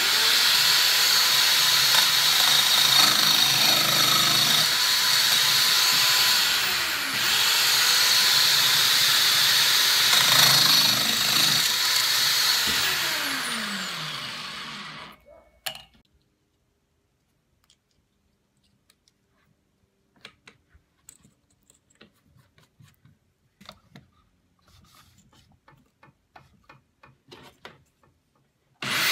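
Corded electric drill spinning a small disc in a homemade sliding-rail rig, working into a block of wood; its pitch sags briefly a couple of times, and it winds down and stops about halfway through. Then only faint scattered clicks and knocks, until the drill starts up again at the very end.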